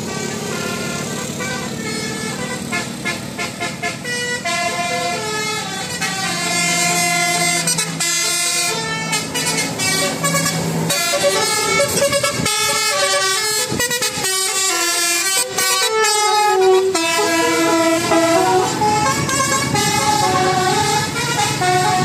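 Bus 'telolet' multi-tone air horn playing a quick melody of stepped notes, with a steady low engine hum underneath for the first half.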